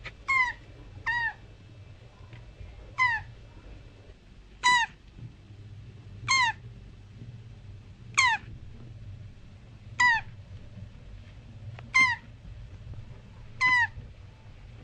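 Mating turtle giving short, squeaky calls that fall in pitch, nine in all, roughly one every two seconds, over a steady low hum.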